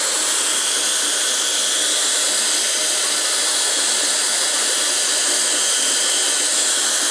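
A power tool running steadily, a loud, even, high-pitched whir that does not change.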